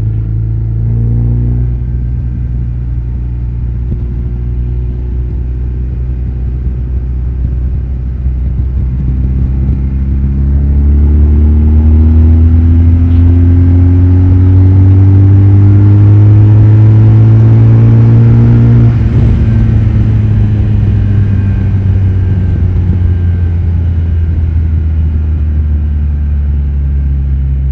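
GS motorcycle engine under way, heard from on the bike: it runs steadily, then pulls harder with its pitch climbing and growing louder for about ten seconds. About two-thirds of the way through it drops off suddenly, and the pitch sinks slowly as the bike rolls off.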